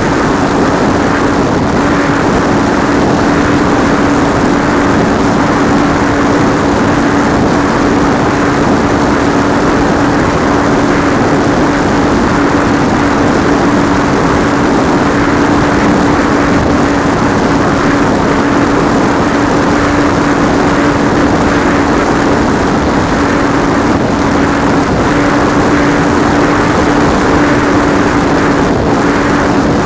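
Electric motor and spinning propeller of a radio-controlled model airplane, heard from its onboard camera: a steady drone holding one constant pitch, over a loud rush of airflow noise.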